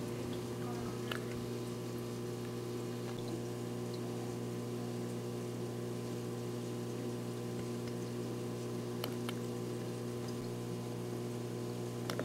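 Steady electrical hum, even and unchanging, with a few faint soft clicks about a second in, near nine seconds and at the end.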